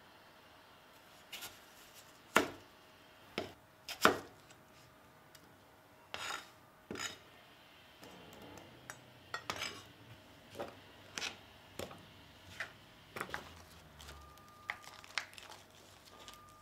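Chef's knife cutting potatoes on a plastic cutting board: irregular sharp knocks as the blade strikes the board, about a second apart at first, then quicker and lighter from about nine seconds in.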